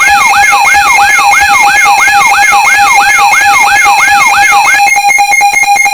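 Synthesized emergency alert alarm tone: a loud siren-like sweep repeating about three times a second over steady beeping tones. Near the end it changes to a rapid stuttering pulse, signalling the start of a severe thunderstorm warning broadcast.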